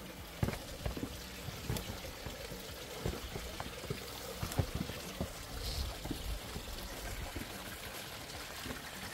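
Water trickling and pouring steadily, with scattered soft knocks throughout, most of them in the first half.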